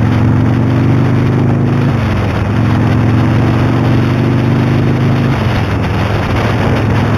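Motorcycle engine running under way, with wind rushing over the microphone. The engine note falls about two seconds in, breaks off briefly and picks up again, then changes once more about five and a half seconds in, as the rider changes down through the gears.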